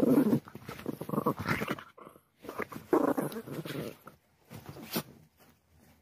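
A dog vocalising in a few separate bursts, growing fainter near the end.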